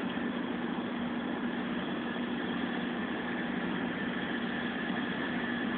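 Steady hum of heavy machinery running, an even noise with a constant low tone that holds without change.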